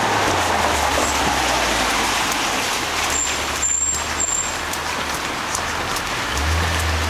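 Steady rain hissing on a wet street and pavement, with the low hum of a motor vehicle's engine that grows louder near the end.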